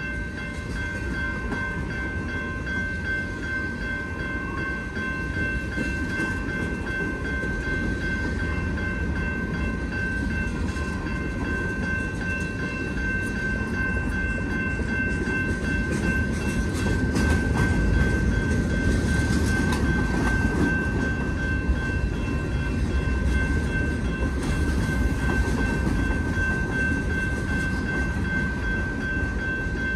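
Freight cars of a Union Pacific manifest train rolling past close by: a steady rumble of wheels on rail that grows louder about halfway through, with scattered clicks. A steady high tone sounds above the rumble.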